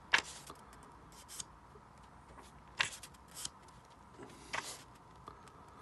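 Paper pages of a paperback manga volume being turned by hand: a few short, crisp paper flicks and rustles with pauses between, the sharpest just after the start and about three seconds in.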